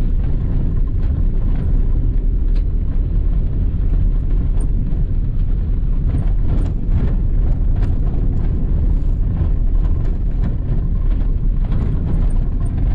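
Nissan car on the move, heard from inside: a steady low rumble of engine and road noise, with scattered small knocks and clicks.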